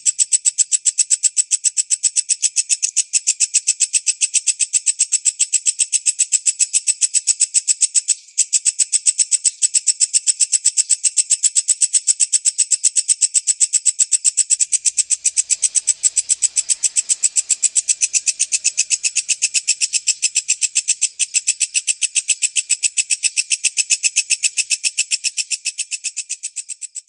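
Walang kecek katydid calling: a rapid, steady train of high, dry chirps, fading out at the very end.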